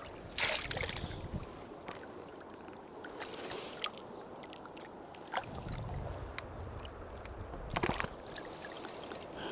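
River water splashing, a sharp splash about half a second in and another near the end, with smaller splashes between, over the steady wash of the flowing river.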